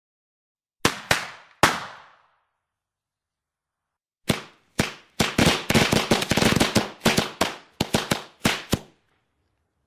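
Fireworks bangs: three sharp reports about a second in, then after a pause a rapid, irregular string of bangs for about four seconds, each with a short fading tail.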